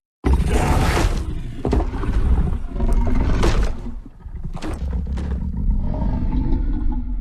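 Designed kaiju roar sound effect for Fang Godzilla: a long, rough roar that starts abruptly and lasts about seven seconds, with several sharp crackles through it, tailing off near the end.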